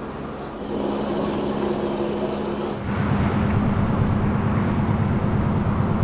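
Steady hum of idling vehicle engines, then, about three seconds in, a louder, rough, fast-pulsing engine noise.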